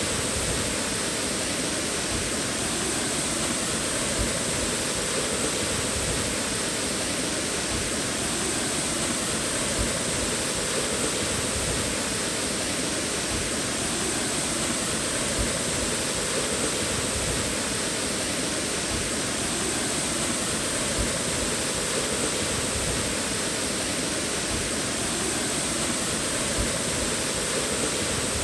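Waterfall: falling water rushing steadily, without a break.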